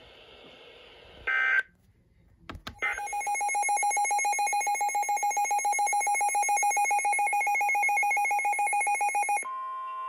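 NOAA weather radio receiver sounding its alert: a loud, rapidly pulsing electronic beep starts about three seconds in, after faint radio hiss, a brief tone burst and a couple of clicks. Near the end it gives way to a steady single warning tone, announcing the next flood-warning broadcast.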